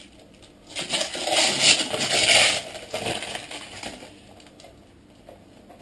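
A plastic protective cover rustling as it is pulled off a new wireless router and pushed into the cardboard box, loudest between about one and three seconds in, then fading to faint handling.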